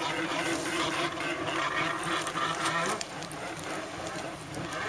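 Stand-up jet ski's engine running at speed on open water, a steady drone that gets a little quieter from about three seconds in.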